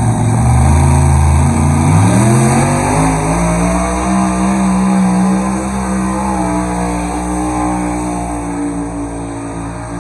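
Pulling tractor's engine revving up hard under load as it drags the weight-transfer sled. Its pitch climbs over the first few seconds, then holds high and eases slightly near the end.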